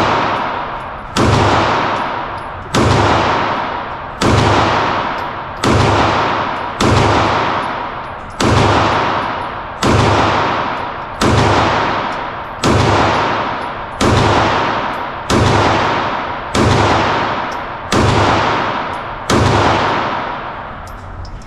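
9mm Glock 19 pistol fired at a slow, even pace: about fourteen single shots roughly one and a half seconds apart. Each sharp report is followed by a long fading echo in the indoor range.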